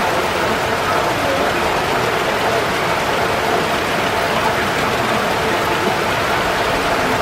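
Steady heavy rain falling, an even continuous hiss.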